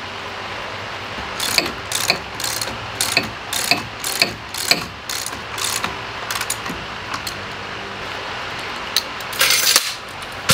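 Ratchet wrench tightening a nut on a bolt through a wooden boat frame: a steady series of ratcheting strokes, about two a second, then a quick run of clicks near the end and a single knock.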